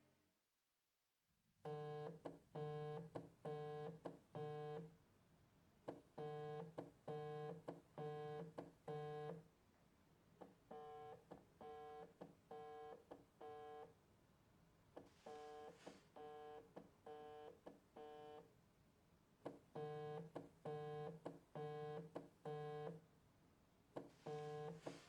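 Mobile phone ringtone: short electronic beeps in repeated groups of four, with brief pauses between the groups, starting after a second and a half of near silence.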